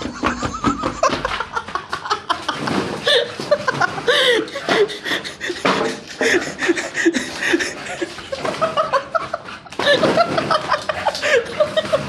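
A man laughing in short bursts, with frequent rubbing and knocking from a jostled phone and clip-on mic.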